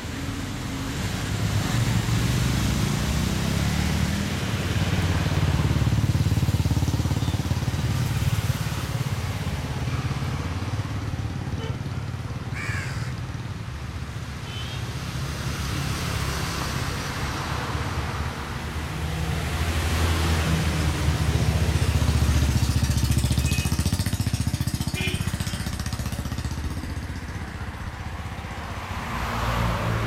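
Road traffic passing, a low rumble that swells and fades several times as vehicles go by, with a few short bird calls over it.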